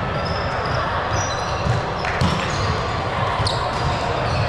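A ball being struck and thudding on a hard gym court, with short sneaker squeaks over a steady background hum of the hall. Sharp hits come about two seconds in and again about three and a half seconds in.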